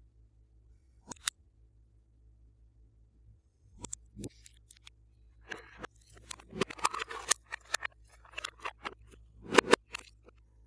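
Glossy slime being worked and stretched, giving sharp wet clicks and pops: a couple about a second in, then a quick irregular run of them from about four seconds on, loudest near the end.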